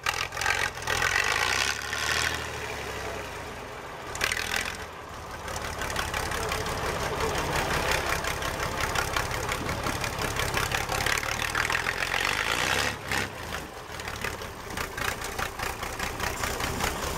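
Diesel engine of an off-road trial truck working as it crawls up a steep dirt slope, the engine note rising and falling with the throttle.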